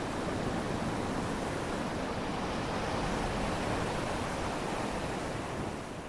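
Ocean surf washing onto the shore: a steady rushing of waves that starts to fade out near the end.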